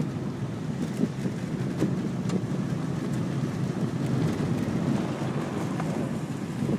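Car driving along a rough dirt track, heard from inside the cabin: a steady rumble of engine and tyres, with a few light knocks and rattles.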